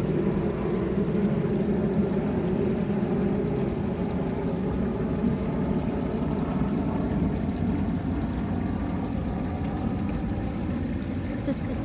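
Steady low motor drone.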